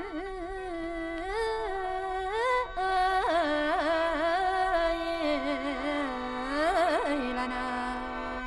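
Mor lam singing: a long drawn-out melismatic vocal line that slides and wavers with vibrato, held over the steady chord drone of a khaen reed mouth organ.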